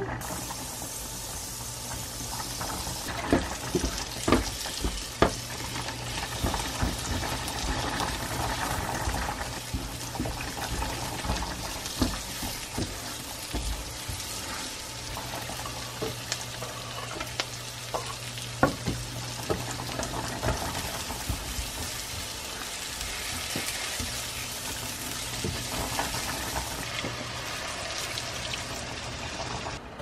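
Sliced onions and garlic frying in oil in a non-stick frying pan, a steady sizzle, with frequent clicks and knocks of a spoon stirring against the pan.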